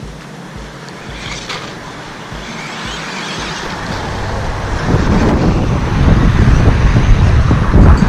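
Small electric 1/12-scale RC truck driving over dirt and concrete, a noisy hiss of motor and tyres, with a low rumble that grows loud from about five seconds in.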